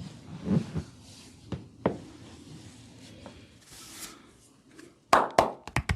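Hands massaging a body: skin rubbing with a few light pats, then a quick run of sharp, loud smacks about five seconds in.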